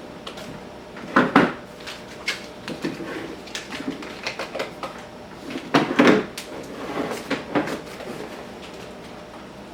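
Clunks, knocks and clicks of hard plastic tool gear being handled and set down, with two louder clunks about a second in and about six seconds in, and lighter clicks between.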